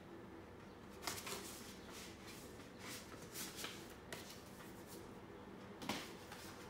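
Paper rustling as a greeting card and its envelope are handled: a series of short, faint crinkles and rustles, the sharpest about six seconds in.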